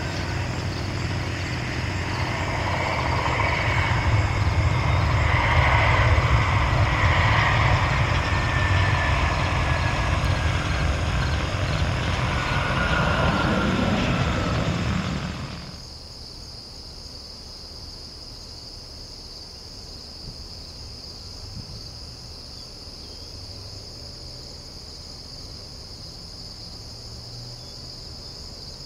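Airbus A320 jet engines during landing rollout: loud jet noise that builds a few seconds after touchdown, with a slowly falling whine. It cuts off abruptly about halfway through, leaving steady cricket chirping.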